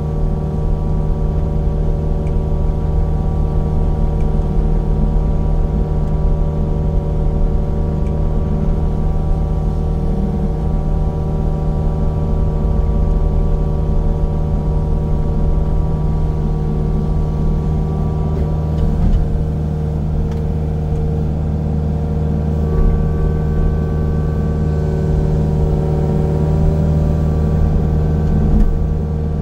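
Engine of land-clearing heavy machinery running steadily at a constant speed while trees are knocked down and pushed into piles.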